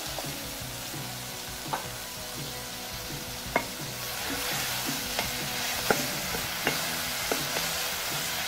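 Sagaa greens and onions frying in a metal pot while being stirred with a wooden spatula: a steady sizzle that grows slightly louder about halfway through, with the spatula knocking against the pot about six times.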